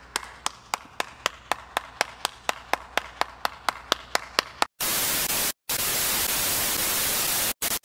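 One person clapping slowly and steadily, about four claps a second. Nearly five seconds in it gives way to a loud hiss of TV static, broken by a few brief silent gaps.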